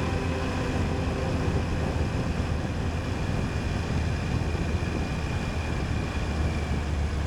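Motorcycle engine running steadily at road speed with wind and road noise, a low rumble under an even rush; the last notes of background music fade out about a second and a half in.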